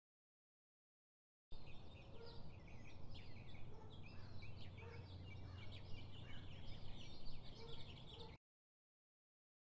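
Faint ambience of many small birds chirping over a low steady hum. It starts about a second and a half in and cuts off abruptly with about a second to go.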